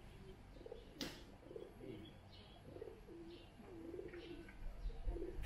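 Doves cooing in a run of short, low coos, with faint chirps of small birds above them and one sharp click about a second in.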